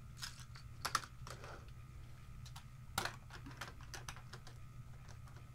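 Scattered, irregular clicks of typing on a computer keyboard, faint, over a steady low hum.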